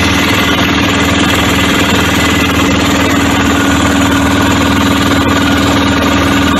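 Fishing boat's inboard engine running loudly and steadily during an engine test, with a rapid, even beat.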